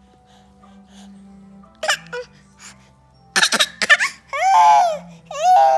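A baby vocalizing over faint background music: a short cry about two seconds in, a quick flurry of sharp short sounds a little past halfway, then two long, loud, high-pitched calls near the end.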